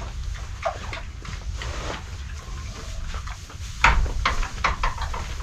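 Domestic pig making a string of short, irregular grunts and snorts, the loudest about four seconds in.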